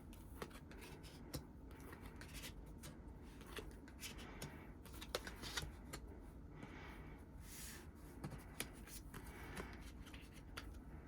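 Faint handling of photocards as they are slid and laid out on a surface, with scattered light clicks and rustles.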